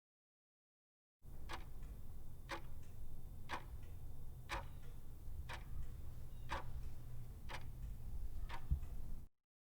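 Regular ticking, about one tick a second, over a low steady hum. It starts from dead silence about a second in and cuts off to dead silence near the end.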